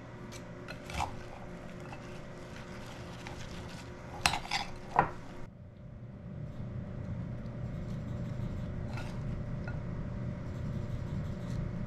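Metal spoon clinking against a glass jar and a ceramic mixing bowl while mayonnaise is scooped out and stirred into a chopped apple salad, then spooned into apple cups. A few sharp clinks, the loudest pair about four to five seconds in, over a steady low hum.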